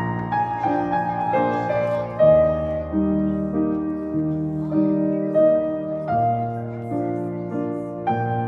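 Background music: a slow, gentle keyboard melody of held notes, changing about once a second.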